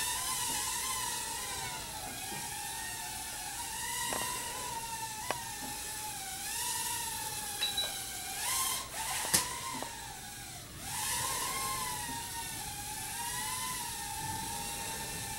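Blade Pico QX nano quadcopter in flight: a high-pitched whine from its four tiny motors and propellers, wavering up and down in pitch as the throttle changes. A few short clicks, the loudest about nine seconds in.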